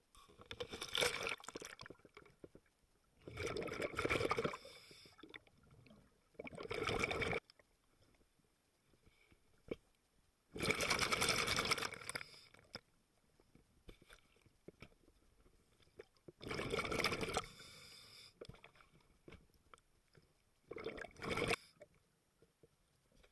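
Scuba diver breathing underwater: bursts of exhaled bubbles from the regulator, six exhales a few seconds apart, each lasting one to two seconds, with quiet in between.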